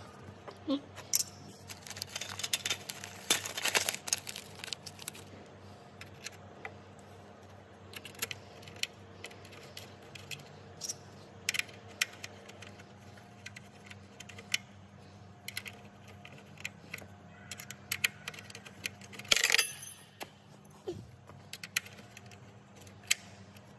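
Small metal clicks and clinks from a hand driver working a bolt through a fender washer, coming irregularly. There is a dense run of clicks a few seconds in and a louder clatter near the end.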